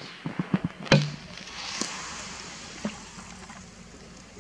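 Young macaques slurping water from a plastic plate: a few quick wet clicks in the first second, then a soft hissing slurp for a couple of seconds, with odd clicks after.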